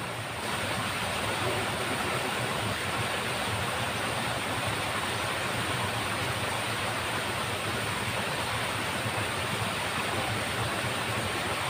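Steady rushing of water flowing along a small ditch, an even hiss with no breaks.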